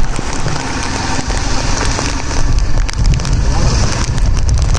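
Heavy rain pouring, with wind rumbling on the microphone; the low rumble grows stronger about three seconds in.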